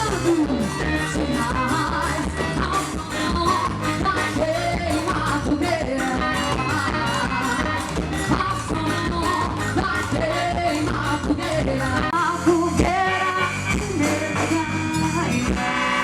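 Quadrilha junina dance music: a sung song over a steady quick beat, about three strokes a second. The accompaniment drops out briefly and changes about thirteen seconds in.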